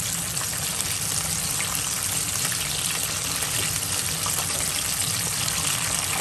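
Starch-coated chicken thigh pieces deep-frying in hot oil in a pan: a steady, dense sizzle with fine crackling.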